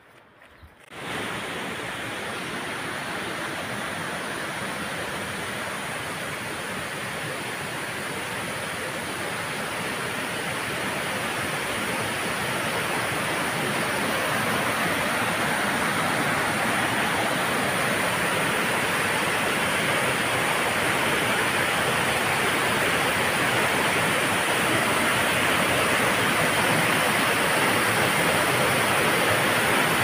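Mountain stream cascading over rocks: a steady rush of white water that starts suddenly about a second in and grows gradually louder.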